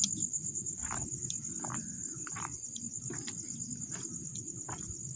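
Crickets trilling in a steady, high-pitched pulsing chorus, over a low rumble, with scattered short clicks and rustles.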